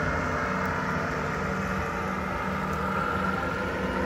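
A vehicle's engine running steadily, a constant hum with a faint high whine above it.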